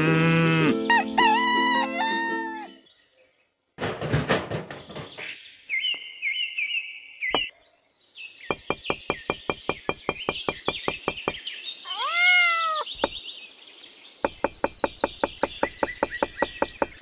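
Rooster crowing and birds chirping, with two runs of rapid even clicking in between. The calls come one after another rather than overlapping.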